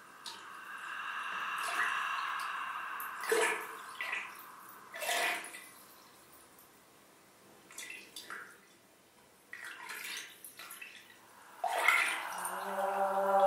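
Opening of an ambient music track: water-like splashes and drips scattered through, over a held high tone during the first few seconds. Near the end a sustained low note with overtones comes in.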